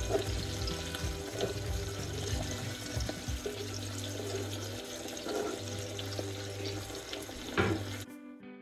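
Water running and splashing steadily, with a few light knocks and one louder knock near the end before it cuts off abruptly.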